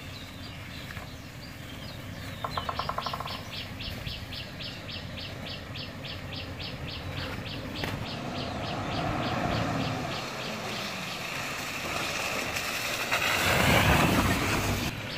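Toyota Land Cruiser's 4.7-litre V8 engine running as the truck drives slowly over a snowy track, loudest as it passes close by about thirteen seconds in. A bird's rapid high ticking call, about five a second, repeats over it.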